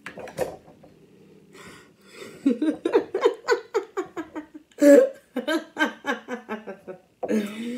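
A woman laughing: a long run of rhythmic bursts, about four or five a second, loudest about five seconds in. A sharp click comes about half a second in.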